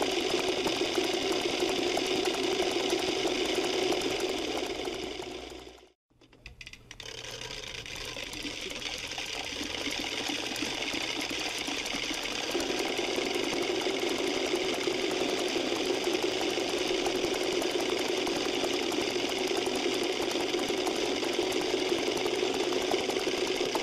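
Wooden Easter rattles (Klappern) worked together in a dense, continuous rapid clatter. It fades out about six seconds in, then fades back in and goes on.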